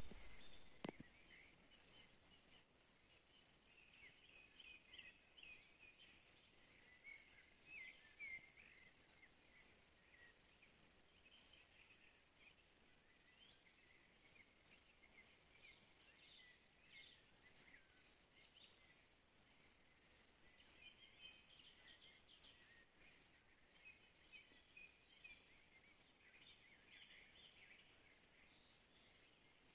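Faint evening field ambience: a cricket chirping in a steady, evenly pulsed high tone, with scattered short bird chirps over it. A soft knock about a second in.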